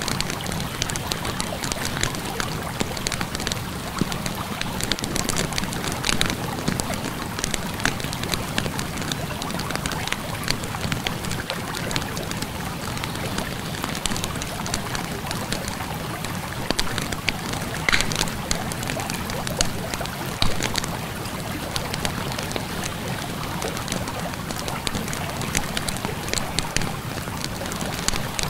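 Wood fire crackling, with sharp pops scattered through, over the steady rush of flowing river water.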